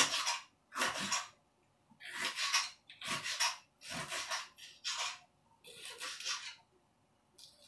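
Kitchen knife drawn through a red chilli on a chopping board in about seven short slicing strokes, roughly one a second.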